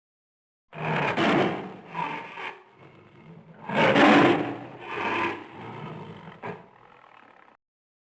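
Lion roaring: a rough, rasping roar swells twice, then trails off in weaker, shorter roars before stopping abruptly near the end.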